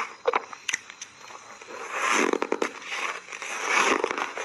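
Matcha-powder-coated reshaped ice being bitten and chewed close to the microphone: a few sharp crackles, then a louder, dense stretch of crunching about halfway through as a big bite is taken.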